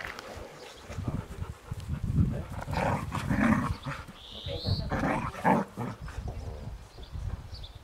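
Two Bouviers des Flandres play-fighting, growling in short irregular bursts.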